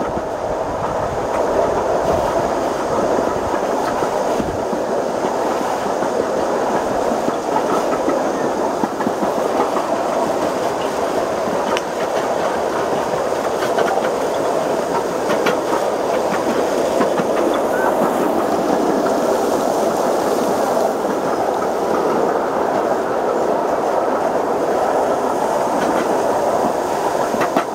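Miniature 7.5-inch gauge ride-on train rolling along its track, heard from a passenger car: a steady rumble of wheels on rail with occasional clicks at the rail joints. The joints are welded but not at the railhead, so they still give a clickety-clack like jointed rail.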